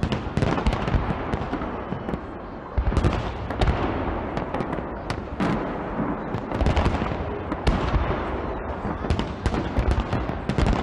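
Fireworks display: a rapid, irregular series of bangs from bursting shells with crackle between them. The heaviest volleys come about three seconds in and again around seven to eight seconds in.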